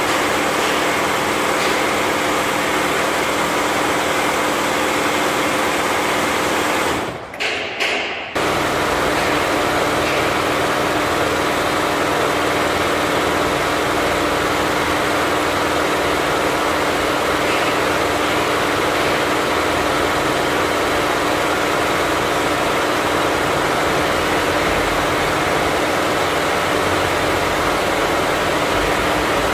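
Richpeace 20-head flat embroidery machine running at 1200 RPM, its heads stitching together in a steady mechanical clatter over a constant hum. The sound drops out briefly about seven seconds in.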